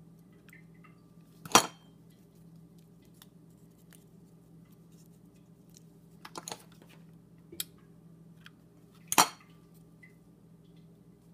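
Hard clacks of a hot glue gun and craft tools knocking on a countertop: two loud sharp clacks, about a second and a half in and about nine seconds in, with a few lighter clicks between. A faint steady hum lies underneath.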